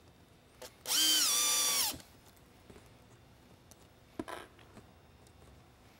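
Cordless drill/driver running for about a second, driving a screw into the lighthead's housing; its whine steps down and falls in pitch as it stops. A short clack follows a few seconds later.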